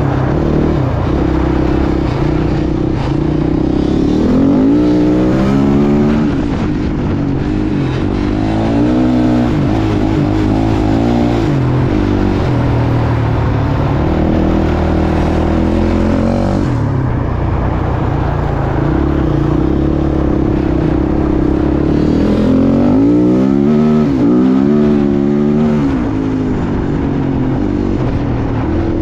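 Small youth dirt bike engines revving up and down again and again as the riders accelerate and ease off on a snowy ice track.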